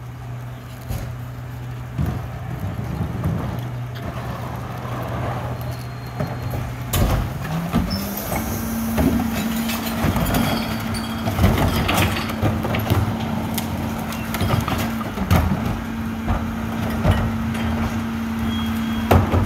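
Rear-loading recycling truck's diesel engine running at idle, then speeding up about seven seconds in and holding at a higher pitch while the cart tipper lifts a recycling cart into the hopper. Knocks and bangs of the plastic cart and the tipper mechanism come over the engine.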